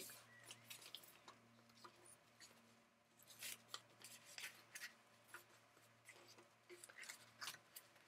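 Small scissors snipping through paper in short, irregular cuts, faintly, as a paper cut-out's outline is trimmed.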